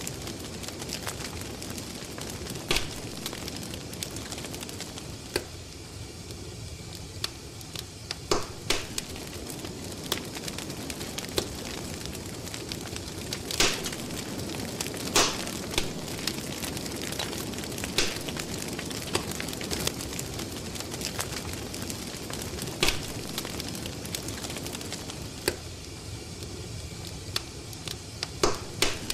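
Crackling wood fire: a steady low rush with irregular sharp pops and snaps, a few at a time, the loudest pair near the middle.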